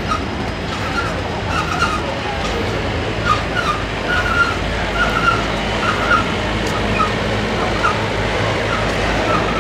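Intermodal double-stack freight train's well cars rolling past at speed: a steady rumble of wheels on rail, with short high squeaks every second or so.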